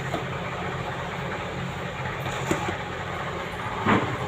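Steady low mechanical hum over an even noise, with a few faint clicks and a brief louder knock near the end.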